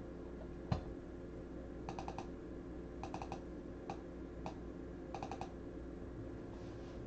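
Computer keyboard being typed on in short bursts of a few quick keystrokes, with single key clicks between them, over a faint steady hum. A single louder click comes just under a second in.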